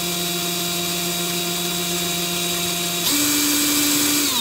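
Cordless drill running at high speed, a standard twist bit cutting through a copper plate under mild to moderate downforce: a steady motor whine. About three seconds in, the whine jumps higher and louder, and near the end its pitch starts to fall as the drill winds down.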